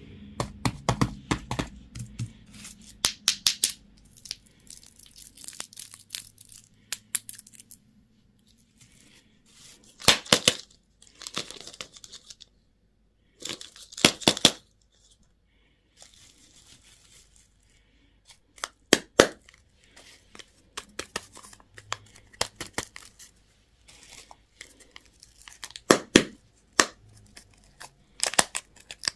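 Candy wrappers being torn open and crinkled in short, irregular bursts of rustling and sharp crackles, with brief pauses between.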